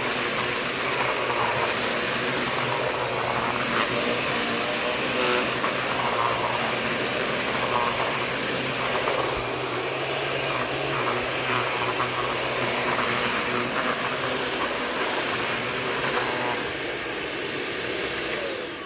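Shark Navigator NV60 upright vacuum running steadily while it picks up dirt spilled from its dust cup. The sound fades over the last couple of seconds as the motor winds down.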